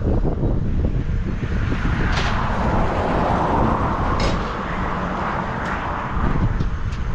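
6.0 Power Stroke V8 diesel pickup running with a steady low rumble. A rushing hiss swells and fades over the middle few seconds.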